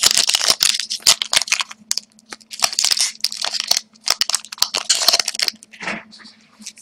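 Hockey card pack wrapper crinkling and tearing as it is opened, in several runs of sharp crackles with short pauses between.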